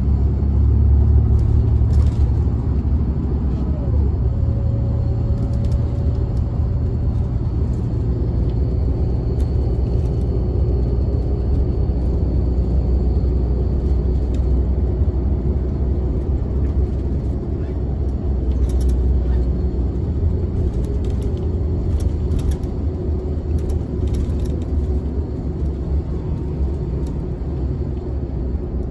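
Steady low rumble of a bus's engine and tyres heard from inside the passenger cabin while it drives, with occasional faint clicks and rattles.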